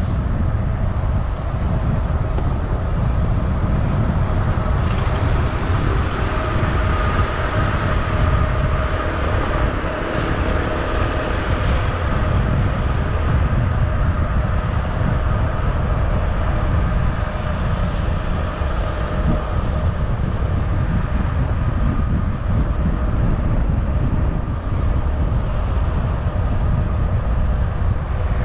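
Road and wind noise from a moving vehicle: a steady low rumble with a faint steady whine over it, clearest in the first half.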